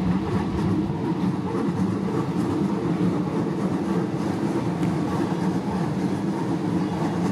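Commuter train running past over a street level crossing: a steady rumble of wheels on rail.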